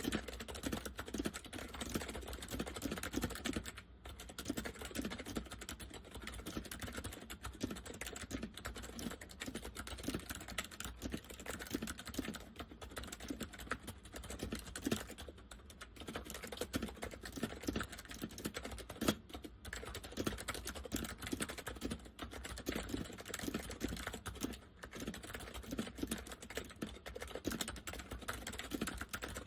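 Continuous fast typing on an Acer 6312K7 keyboard with Acer semi-mechanical switches in a KB101A-style chassis, the chassis giving the keystrokes a deep sound. A dense stream of key clicks, with short pauses about four, fifteen, nineteen and twenty-five seconds in.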